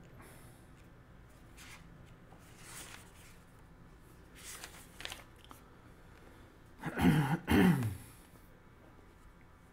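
Paper pages of a book rustling and turning several times as they are leafed through, then a short two-part vocal sound from the reader about seven seconds in, the loudest thing here.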